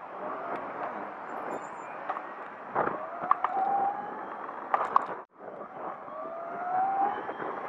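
Razor 500 electric dirt bike's motor whining as it rides, its pitch rising twice as it speeds up, over a steady rush of wind noise on the microphone. A few sharp knocks and rattles come around the middle, and the sound drops out for a moment about five seconds in.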